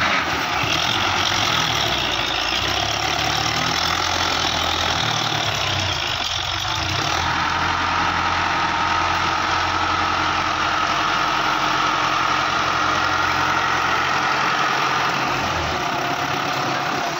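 Belarus tractor's diesel engine running steadily under load on soft, muddy ground, working with a loaded trolley. A higher steady whine rises over the engine from about the middle onward.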